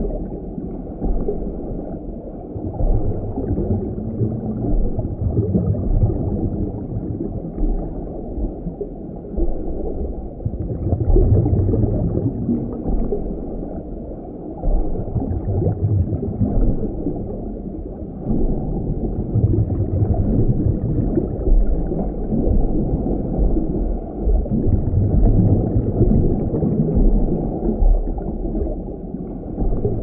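Muffled underwater ambience: a deep, low rumbling wash of moving water, dull and without any bright hiss, whose lowest part swells and eases every few seconds.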